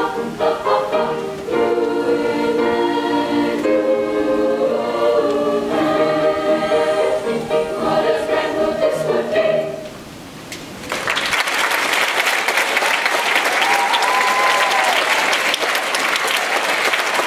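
Treble choir of girls singing the final phrase of a song with piano accompaniment, the last chord ending about ten seconds in. After a brief pause the audience breaks into applause.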